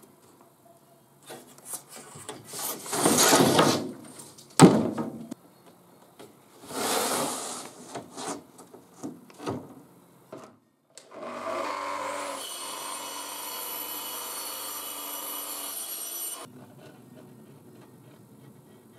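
Plywood sheets handled on a workbench: sliding and rubbing wood noises and one sharp knock. Then an electric power tool spins up and runs steadily for about five seconds before stopping.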